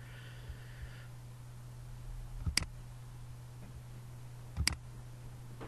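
Two sharp computer mouse clicks about two seconds apart, over a steady low hum.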